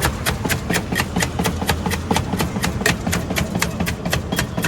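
Rapid, evenly spaced clicking or tapping, about four to five sharp clicks a second, over a steady low rumble of background noise.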